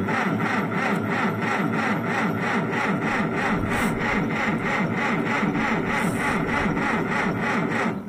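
Farmall 400's starter cranking the choked four-cylinder gasoline engine in deep cold, an even rhythmic churn that stops near the end without the engine firing. The owner suspects water in the fuel system.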